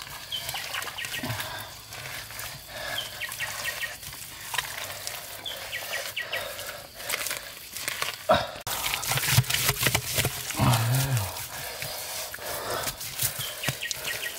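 Bare hands scooping and slapping thick wet mud while digging out a hole: irregular squelches and wet slaps, loudest and busiest in the second half.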